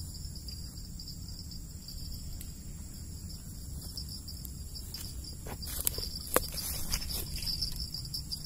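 Steady, high-pitched chirring of insects, over a low rumble. A few sharp clicks and knocks come close together about six seconds in.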